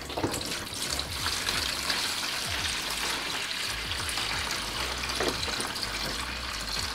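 Leftover water pouring in a steady stream from a portable sink's plastic water tank into a plastic tub, splashing as it lands.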